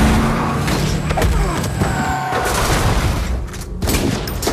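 Film-trailer action sound mix: a string of loud booms and impacts over a steady low drone, which stops a little past two seconds in.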